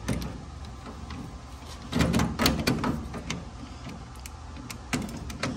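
Clicks and clanks of a copper press tool being handled and its jaws fitted onto a pipe fitting, with a cluster of knocks about two to three seconds in.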